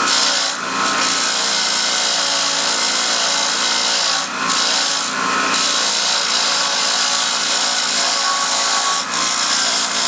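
Bench grinder spinning a worn wire wheel against a rusty bolt: a steady, harsh scratching hiss as the wire bristles scour off the rust under light pressure, dipping briefly a couple of times as the bolt is turned.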